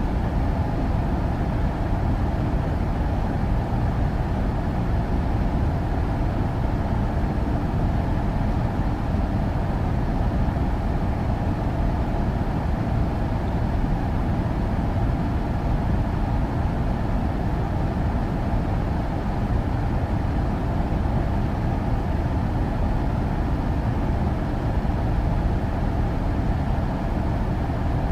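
Air conditioner running steadily: an unchanging low hum and rush of air with a faint steady tone above it.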